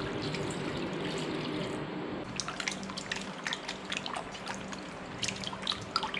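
Water pouring into a steel pot of cut raw beef for about two seconds. Then hands rub and squeeze the meat pieces in the water, with quick wet splashes and drips as the beef is washed.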